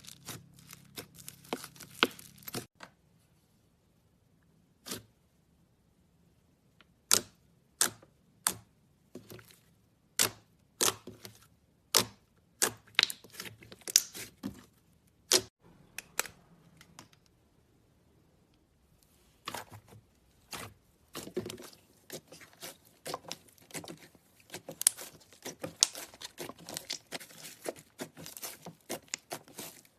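Slime being squeezed and stretched by hand, giving runs of sharp pops and crackles with short pauses between them.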